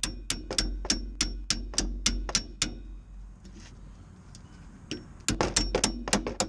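Hammer tapping lightly and quickly on metal at a car's rear brake caliper, about three to four strikes a second, each with a short metallic ring. The tapping stops for a couple of seconds near the middle, then resumes with a quick run of strikes near the end.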